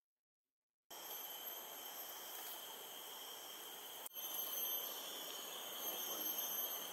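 Tropical forest insect chorus: several steady high-pitched buzzing tones over a faint hiss, starting about a second in, with a brief break about four seconds in.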